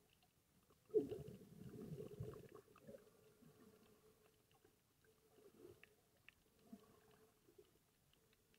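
Muffled underwater sound recorded with the camera below the surface: a burst of low rumbling and knocking starts about a second in and lasts a second or two, followed by scattered faint clicks, over a faint steady hum.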